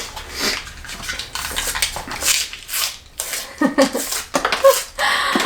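Snack packaging rustling and clicking as it is handled and opened, in irregular bursts.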